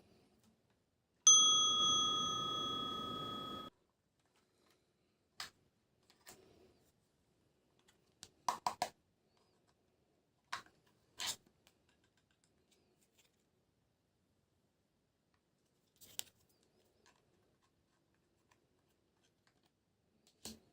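A single bright bell-like ding, about a second in, that rings for roughly two and a half seconds and then cuts off abruptly. It is followed by a few scattered light clicks and taps.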